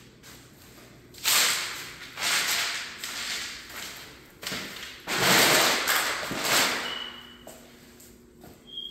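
Footsteps on brown builder's paper laid over the floor, the paper rustling and crackling underfoot in several loud bursts, loudest from about five to six and a half seconds in.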